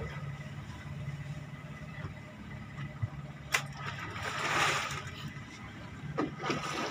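A fishing boat's engine running with a steady low hum. A sharp click comes about three and a half seconds in, followed by a brief rushing swell of noise, and faint voices near the end.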